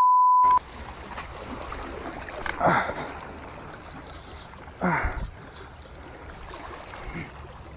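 A censor bleep, a steady 1 kHz tone, cuts off about half a second in. After it comes a steady hiss of sea and wind, broken twice by short falling vocal exclamations, about three and five seconds in.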